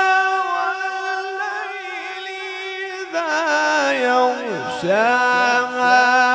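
Male qari's melodic Quran recitation (tilawat): a long, ornamented held note, then a new phrase from about three seconds in. It comes through a PA system with a heavy echo effect that repeats each note as it fades.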